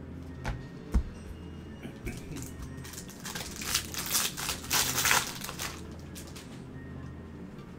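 Foil wrapper of a baseball card pack crinkling and rustling as gloved hands tear it open and pull the cards out, loudest in the middle, after two light knocks near the start.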